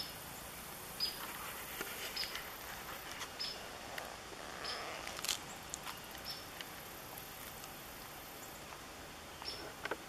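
Boots squeaking at each slow step on a woodland trail, a short high squeak about once a second, with light crunching underfoot.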